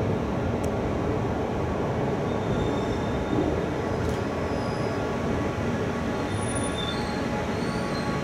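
A train approaching along the line in the distance: a steady running rumble on the rails. From about halfway through come a few faint, short, high-pitched tones.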